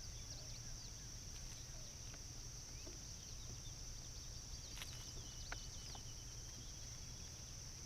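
Early-morning outdoor ambience by the water: a steady high-pitched insect drone with many short bird chirps and calls over it, and a few sharp ticks near the middle, over a faint low hum.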